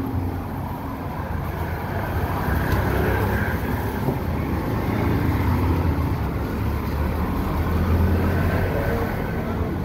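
Steady street traffic: the engines of cars and motor tricycles running on a wet road, with a continuous low rumble.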